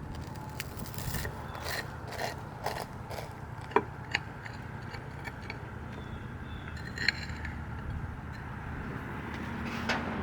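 Clicks, knocks and scrapes of cast-iron cooking gear and utensils being handled as the cooked food is taken out, with sharper knocks about four and seven seconds in, over a steady low rumble.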